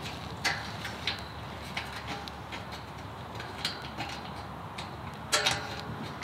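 Scattered light metal clicks and taps from a nail and vice grips being worked on a steel gate hinge bracket, with a louder double knock about five and a half seconds in.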